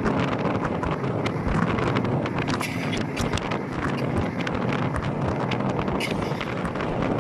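Wind buffeting the microphone over a steady low road rumble, with many small clicks and rattles and two brief hissing surges.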